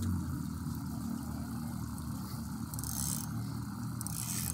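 An engine running steadily at idle, a low even hum. Two short bursts of hiss come about three and four seconds in.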